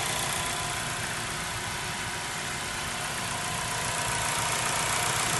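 Honda CR-V's 2.4-litre engine idling steadily.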